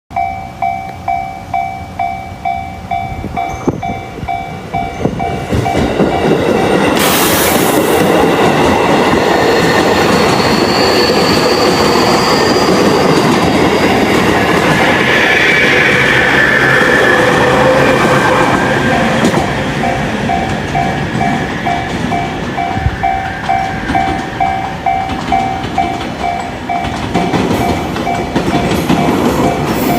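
Japanese railway level-crossing warning bell ringing in quick, even dings, about two and a half a second. A train then runs over the crossing for about twelve seconds with loud rumbling and wheel clatter. The bell is heard ringing again once the train has passed.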